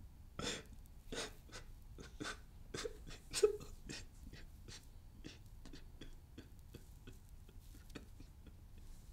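A man crying: a run of short, catching sobbing breaths, loudest in the first few seconds and growing fainter toward the end.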